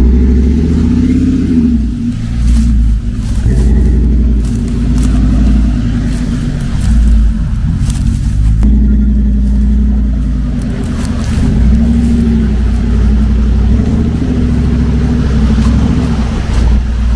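Dodge Ram 1500's 5.7 Hemi V8 revving up and down repeatedly as the pickup pushes through deep mud ruts.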